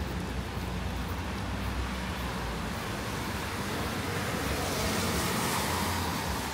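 A vehicle on wet pavement: steady road hiss over a low engine hum, with the tyre hiss swelling about five seconds in as it passes close by.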